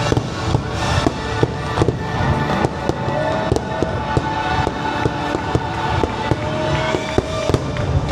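Fireworks bursting in rapid, irregular succession over the show's music soundtrack.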